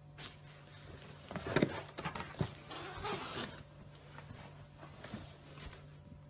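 Two cats tussling in a cardboard box: scuffling and cardboard rustling and scraping, with a couple of sharp knocks, mostly in the first half.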